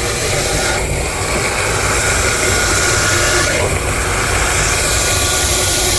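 Electric fish-meat mincing machine running steadily under load, a loud even machine noise with a faint high hum.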